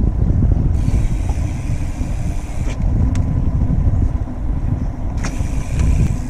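Wind buffeting the microphone of a camera on a moving mountain bike, a heavy uneven rumble. Two stretches of brighter road hiss come about a second in and again near the end, likely from traffic on the road.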